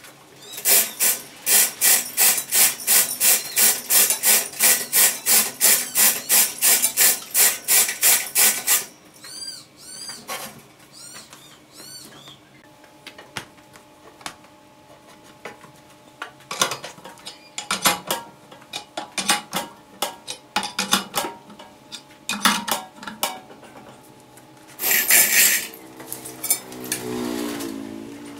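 Workshop clatter from a log being set up on a large wood lathe: a fast run of even rasping strokes, about three a second, for the first eight seconds, then scattered metallic knocks and clanks, and near the end a loud burst followed by a short falling whine.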